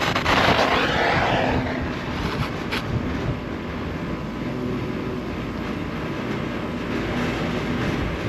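Oxy-acetylene brazing torch: a sharp pop, then the flame's hiss, which dies away over about two seconds. Wind rumbles on the microphone throughout.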